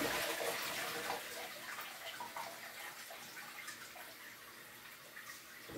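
Rinse water being poured off a pot of washed rice into a kitchen sink, splashing loudest at first and tapering off over the first few seconds, then faint.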